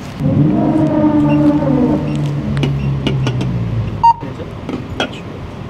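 A low humming tone that sinks slowly in pitch for about four seconds, followed by a single short, sharp electronic beep.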